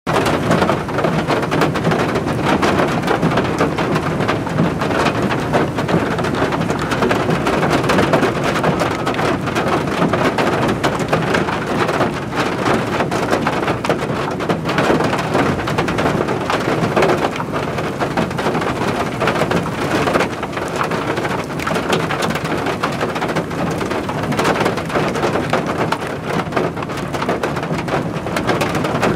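Steady heavy rain: a dense, even hiss of drops pattering on a surface.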